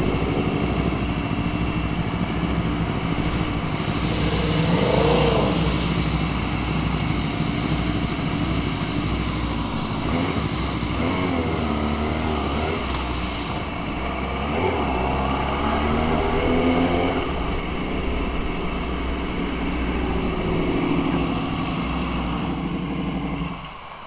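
Motorcycle engine running with passing traffic and a few rises and falls in engine pitch; the sound drops away sharply near the end.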